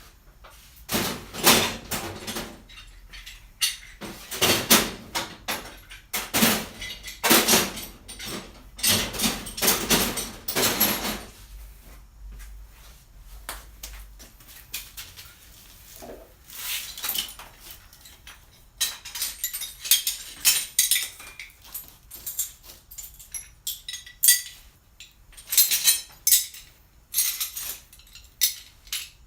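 Steel C-clamps clanking and clinking against one another as they are picked up and handled, in irregular clusters of sharp metal knocks with a quieter spell about halfway through.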